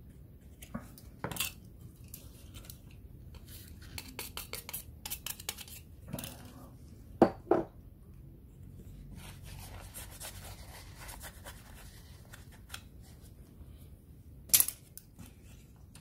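Handling of a remote control's circuit board, plastic case and a hobby knife on a silicone work mat: a run of fine ticking scrapes of the knife blade on the board, then hard clicks and clacks of plastic parts and tools being set down and picked up, the loudest two close together about seven seconds in and one more near the end.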